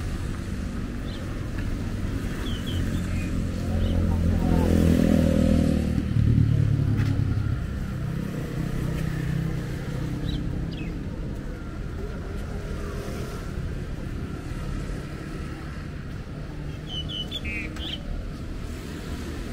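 Road traffic passing close by, with one vehicle's engine growing loudest about four to seven seconds in and then fading into a steady low engine hum.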